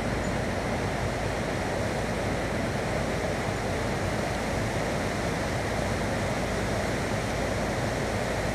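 Steady rushing of flowing water, an even unbroken wash of sound.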